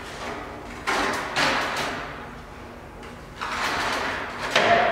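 A stepladder being moved and repositioned on a concrete shop floor, with scraping and clattering in two bursts: one about a second in, and a longer one from about three and a half seconds that ends with a brief ringing note.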